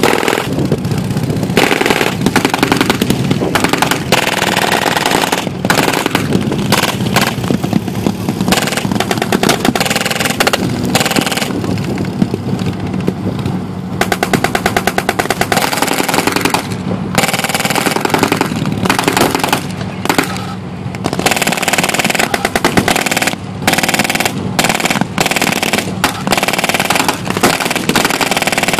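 Blank-firing machine guns and rifles in a staged WWII battle, long runs of rapid automatic fire with short lulls, over an engine running steadily underneath.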